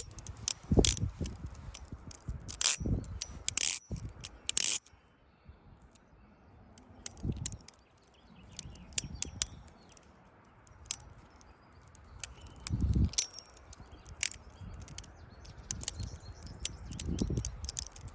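Squid Industries Mako V3 balisong being flipped: quick, irregular metallic clicks and clacks as the handles swing round and snap against each other, with a few dull thumps. The clicking thins out to a quieter stretch in the middle, then picks up again.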